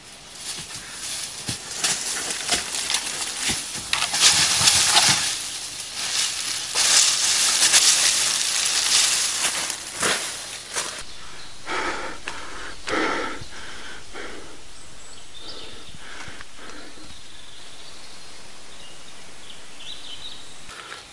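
Dry leaves and brush rustling and crunching loudly as someone scrambles down a wooded slope, for about the first eleven seconds. After that come a few shorter rustles, then a steady outdoor hiss.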